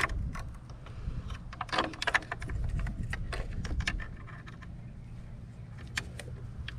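Scattered light clicks and small rattles of hand tools and plastic parts being handled during work in a car's engine bay, a cluster of quick clicks about two seconds in, over a steady low hum.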